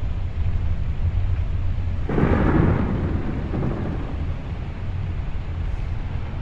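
Thunder: a steady low rumble, with a louder peal breaking about two seconds in and dying away over a second or so.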